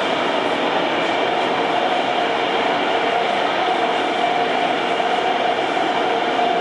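Taipei Metro C321 train running, heard from inside the car: steady rail and running noise with a steady motor hum and light wheel clatter.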